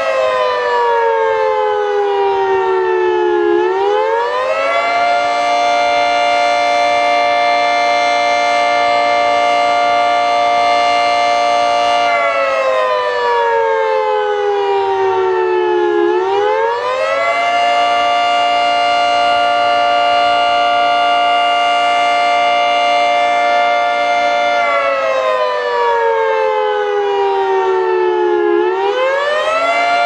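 Federal Signal 3T22 three-tone outdoor warning siren sounding in Hi-Lo: its chord holds high for about seven seconds, slides down over three or four seconds, then climbs quickly back up, over and over.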